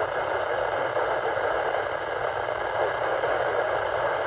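Steady radio static hissing from a weather radio receiver, with no voice coming through.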